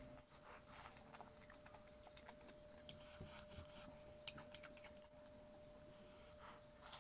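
Faint scraping and clicking of fingers gathering and mixing rice on a metal plate, with eating sounds.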